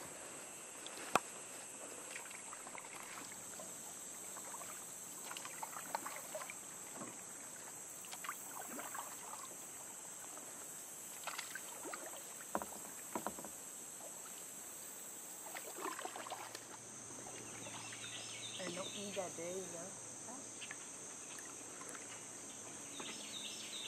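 Kayak paddle blades dipping and pulling through calm water, with light splashes and drips, over a steady high insect buzz. Faint distant voices about three-quarters of the way through.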